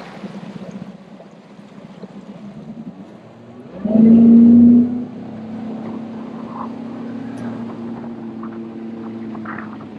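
Bass boat's outboard engine running at speed across the water, a steady engine hum under wind and water noise. About four seconds in the engine tone jumps louder for about a second, then settles into a steady drone.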